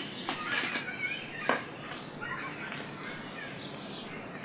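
Outdoor rural ambience: birds chirping and calling here and there over a steady background hiss, with a few short sharp sounds.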